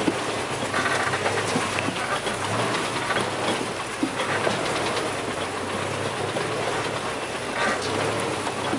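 4x4 vehicle driving over a rough track: a steady rolling noise dotted with many small rattles and knocks.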